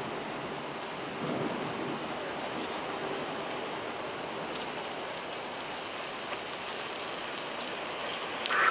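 Steady hiss and rumble of traffic and idling vehicles, with a faint high tone pulsing evenly above it. A louder sound starts just before the end.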